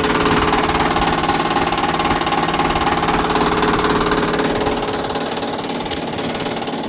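Air-conditioner outdoor unit running with a noise fault: a loud, steady mechanical hum with a fast rattling pulse through it.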